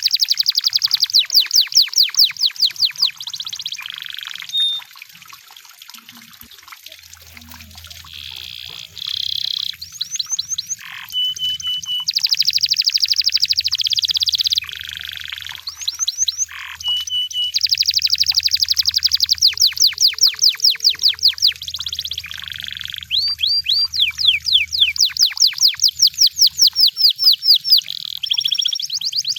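Canary singing: long, fast trills of rapidly repeated sweeping notes, broken by a few short steady whistles.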